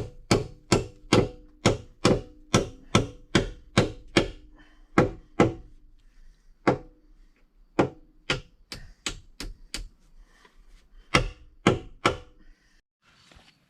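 Hammer driving nails into timber: strikes about two or three a second, each with a short ringing note. After about six seconds the blows come more sparsely, with a last quick group of strikes near the end.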